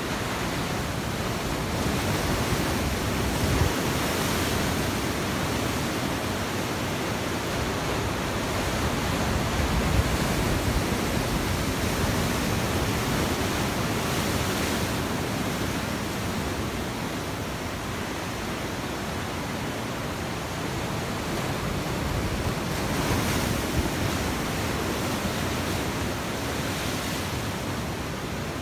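Sea surf breaking and washing over rocks: a continuous rush of white water that swells louder several times as bigger waves break.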